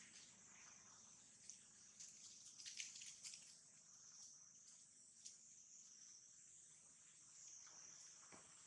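Near silence with a faint, steady high-pitched insect hum and a few faint rustling clicks, the most around three seconds in.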